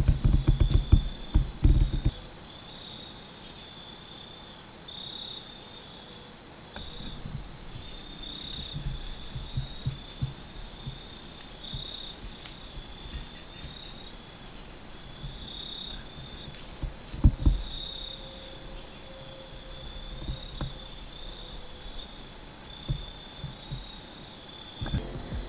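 Crickets and other insects chirping steadily in a continuous pulsing trill. Scattered low thuds and rustles come on top, loudest just at the start and again about seventeen seconds in.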